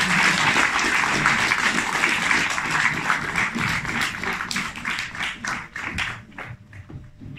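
Audience applauding: dense clapping that thins out to a few scattered claps and dies away near the end.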